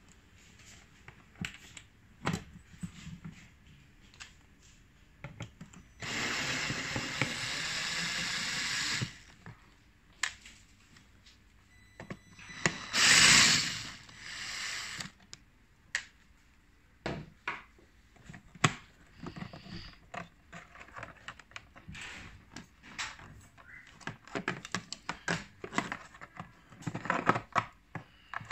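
Cordless drill-driver running in short spells to back screws out of an egg incubator's plastic controller panel: one steady run of about three seconds, then a shorter, louder burst and a brief follow-up a few seconds later. Between the runs, small clicks and knocks of the plastic panel and screws being handled.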